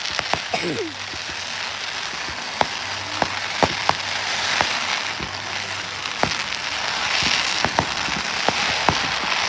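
Fireworks crackling steadily, with scattered sharp pops throughout and a short falling whistle about half a second in.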